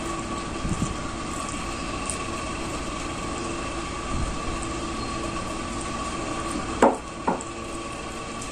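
Steady machine-like hum with a few constant tones, with two short knocks close together about seven seconds in.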